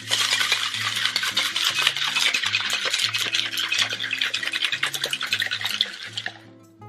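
Crushed ice rattling hard inside a cocktail shaker as it is shaken with dragon fruit puree and pomegranate liqueur. It is a dense, loud clatter of many small ice clicks that stops shortly before the end.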